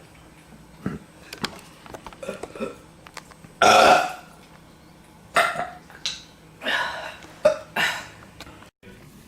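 A woman belching. One loud, long burp comes a few seconds in, then a run of about five shorter burps.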